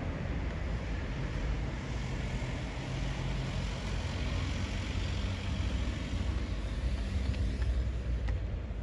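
Steady low rumble of a motor vehicle's engine running, with a few faint clicks near the end.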